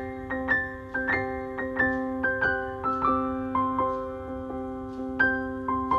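Background piano music: single melody notes struck about every half second over steady held lower notes.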